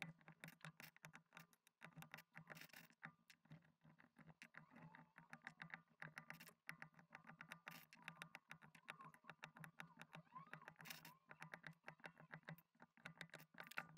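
Faint, rapid run of small clicks and snaps as Akko CS Jelly Black mechanical switches are pressed one after another into a keyboard plate and hot-swap sockets.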